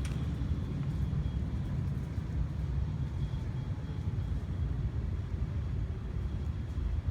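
Steady low rumble of moving vehicle noise, with no distinct events.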